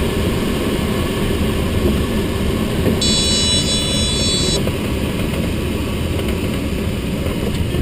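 Steady rushing of air over a sailplane's canopy during a fast, low flyby pass. About three seconds in, a steady electronic tone from a cockpit instrument sounds for about a second and a half.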